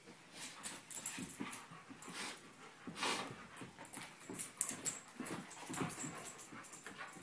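Two dogs, a Shiloh Shepherd and a Basset/Lab mix, play-wrestling: breathing, huffing and scuffling in irregular bursts, the loudest about three seconds in.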